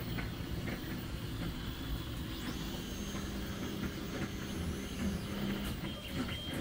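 Steady mechanical hum with faint whining tones from a running delta 3D printer's cooling fan and stepper motors.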